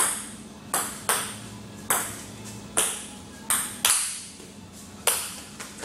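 Ping-pong ball struck back and forth in a table tennis rally: about eight sharp clicks off the table and paddles, some in quick pairs.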